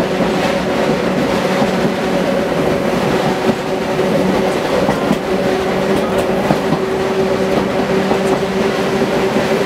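Electric tram running along the track, with a steady hum and the rumble and faint clicking of its wheels on the rails.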